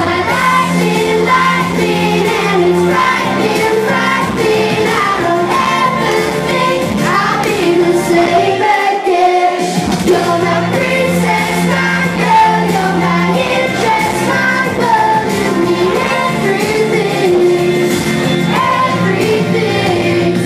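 A boy singing a pop song live into a handheld microphone over backing music with a steady bass line. The bass drops out briefly about halfway through.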